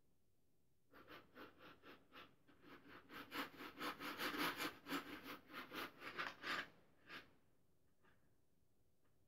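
Mechanical pencil lead scratching on paper in quick back-and-forth shading strokes, about four or five a second. The strokes grow louder toward the middle, stop about two-thirds of the way in, and one last stroke follows.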